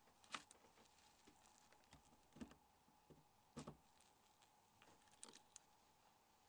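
Near silence broken by a handful of faint, short clicks, about four or five spread over several seconds, the first the loudest: a small camera-removal tool working a phone's camera module out of its metal socket.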